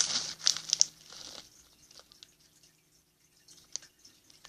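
A packaged snack bag crinkling as it is handled, mostly in the first second and a half, then a few faint clicks.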